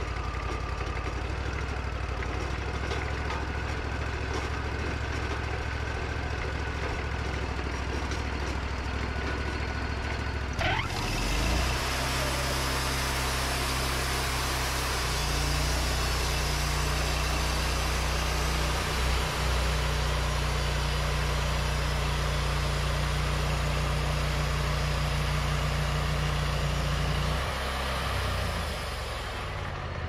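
Wood-Mizer hydraulic portable band sawmill: the engine idles, then about a third of the way in it picks up with a short rising whine as the band blade is engaged. The saw then runs under load through a golden birch log, a steady loud sawing noise over the engine, until shortly before the end, when it drops back to idle.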